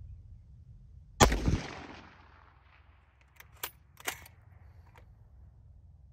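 A single rifle shot fired from a tripod-mounted precision rifle, with its report echoing away over about a second. It is followed a couple of seconds later by a few sharp clicks.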